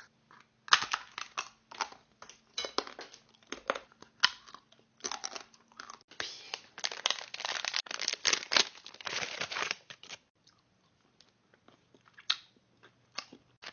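Packaging crinkling and tearing in quick, irregular crackly bursts, thinning to a few scattered crackles near the end.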